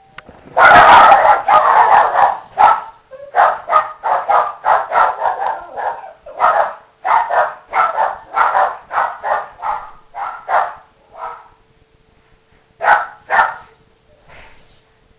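Toy Fox Terriers barking excitedly, going nuts: a dense flurry of barks starting about half a second in, then rapid separate barks about three or four a second, thinning out and ending with a few last barks near the end.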